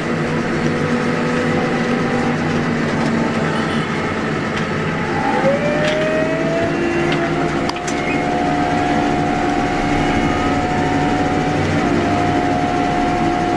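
New Holland LB 115.B backhoe loader's engine running, heard from inside the cab as the machine drives along. About five seconds in, a whine rises in pitch and then holds steady as the machine picks up speed; a couple of short knocks from the machine come through.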